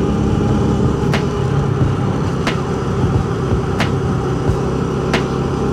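Yamaha PG-1's 115cc single-cylinder engine running steadily while riding, with a sharp click repeating about every second and a third.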